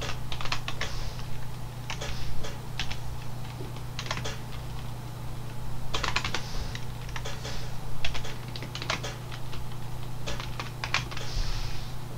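Computer keyboard typing: irregular runs of keystrokes with short pauses between words, over a steady low hum.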